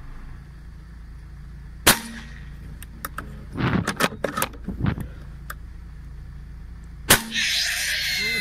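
Two sharp bangs about five seconds apart, with a cluster of smaller knocks and clicks between them; after the second bang, a loud rushing noise with a faint steady whine runs on.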